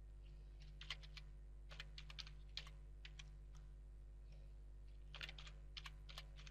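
Faint computer keyboard typing: short runs of quick keystrokes with pauses between them.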